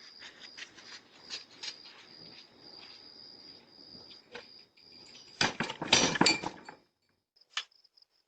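Crickets chirping in a steady high trill, with scattered small clicks. About five and a half seconds in there is a loud burst of noise lasting just over a second. After a brief drop, the cricket chirping returns in short pulses.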